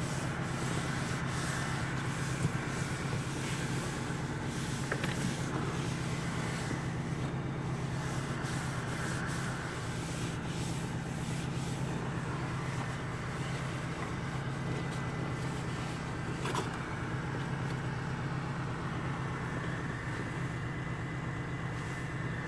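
Small plug-in car heater/defroster fan blowing steadily against the windscreen, over the car's engine running at idle. A few brief clicks and rubbing from the phone being handled.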